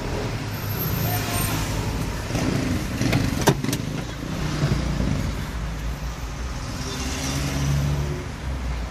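Car engine at a warm idle, about 650 to 700 rpm, heard from inside the cabin as a steady low rumble, with a sharp click about three and a half seconds in.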